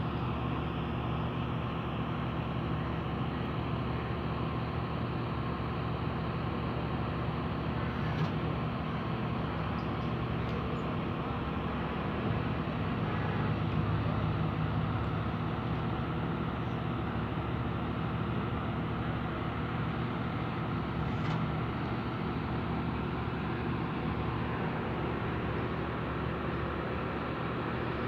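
Truck-mounted mobile crane's diesel engine running steadily, growing a little louder about halfway through.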